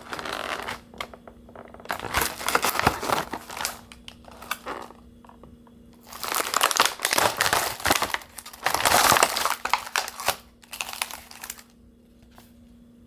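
Clear plastic clamshell food pack crinkling and crackling as it is handled, turned over and opened, in about five irregular bursts.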